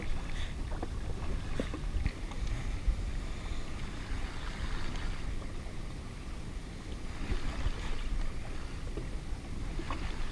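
Wind buffeting the microphone over water lapping around a drifting jet ski with its engine off, with a few soft knocks.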